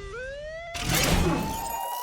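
Cartoon sound effects: an electronic tone sweeping steadily upward in pitch, with a swoosh about three quarters of a second in, over background music.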